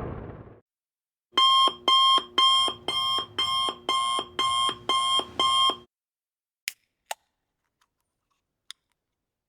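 Digital alarm clock beeping: about ten identical electronic beeps, roughly two a second, that then stop. A few faint clicks follow.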